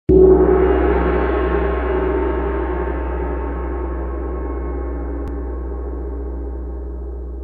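A single gong-like strike right at the start, ringing on with many steady tones over a deep hum and slowly fading away.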